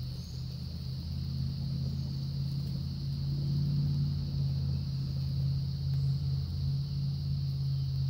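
A low, steady motor or engine hum that swells a little a few seconds in, over a constant high hiss.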